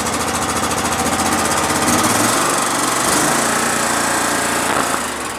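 27 hp Kohler V-twin engine of an Exmark Lazer Z zero-turn mower, with a freshly replaced carburetor, running. It is throttled up from idle about two seconds in, held at the higher speed, then eased back near the end. Under throttle the engine knocks, a sound the owner calls a nasty knock and fears may mean serious engine trouble.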